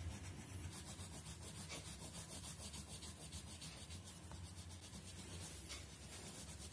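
Faint scratching of a plastic crayon rubbed quickly back and forth across paper, colouring in a shape.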